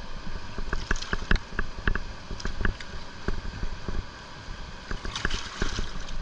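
Irregular clicks and knocks from a landing net holding a large flathead catfish being shifted about on the rocks, over a steady low rumble. A brief rustle comes about five seconds in.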